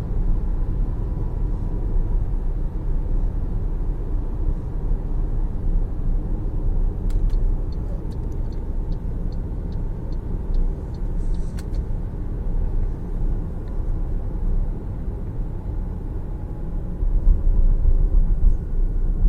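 Road and tyre rumble of an MG ZS EV electric SUV while driving, with a faint steady whine. A sharp click comes about seven seconds in and another near twelve seconds, with a run of light quick ticks between them.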